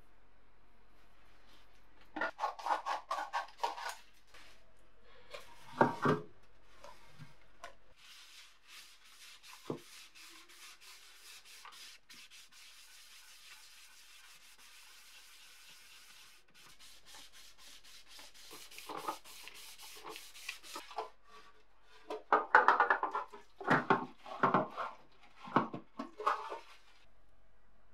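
A hand rubbing and scrubbing the inside of a metal kitchen-scale pan in quick strokes, with a long stretch of even rubbing hiss in the middle. A few knocks and scrapes from handling the pan come near the start and again, louder and denser, near the end.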